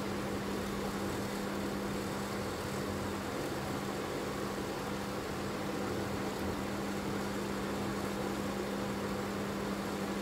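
Levin watchmaker's lathe running steadily while it drills a fine pivot hole, a constant electric motor hum over an even hiss.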